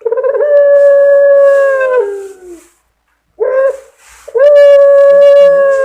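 Young puter pelung dove giving its drawn-out 'crying' coo: one long held note that steps down in pitch and fades, then after a pause a short note and a second long held note that drops at its end.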